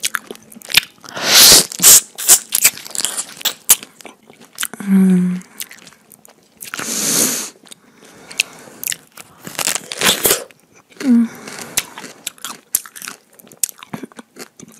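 Fresh pineapple being bitten and chewed with loud, wet lip-smacking right at a clip-on microphone. Two brief low hums come about five seconds in and again near eleven seconds.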